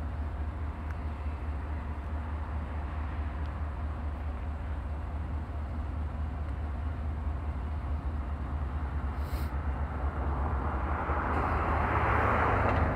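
Outdoor street ambience: a steady low rumble with a vehicle passing by, its noise swelling near the end.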